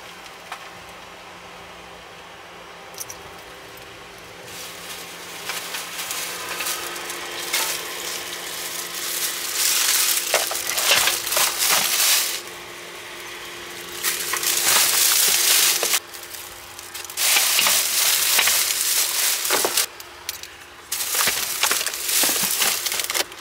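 Plastic shopping bags rustling and crinkling in several bursts as bags and boxes are loaded into a car trunk, over a steady low hum.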